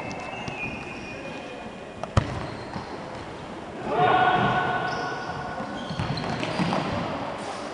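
Futsal ball play on a wooden indoor court: one sharp, loud strike of the ball about two seconds in, then players' voices calling out from about four seconds in.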